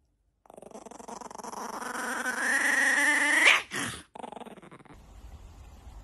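Chihuahua puppy growling. The growl rises in pitch and loudness over about three seconds and ends in a short yap.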